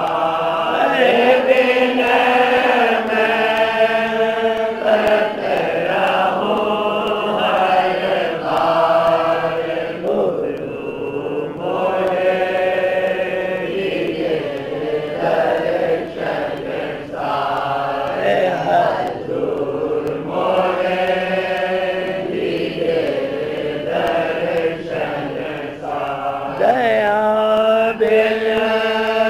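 A devotional shabad (Radhasoami hymn) sung in slow, chant-like phrases, with long held notes that waver and glide in pitch.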